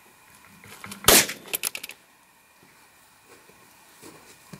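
A handgun fired remotely with a reduced blank (1 grain of Trail Boss powder behind a paraffin wax wad) to blow a stuck squib bullet and water out of the barrel: one sharp shot about a second in, followed by a quick run of smaller cracks lasting under a second.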